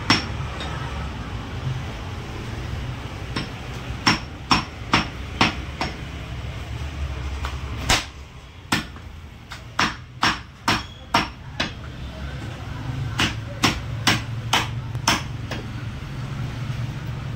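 Meat cleaver chopping goat meat on a wooden stump block: sharp chops in quick runs of several, two or three a second, with short pauses between runs. A low steady hum runs underneath.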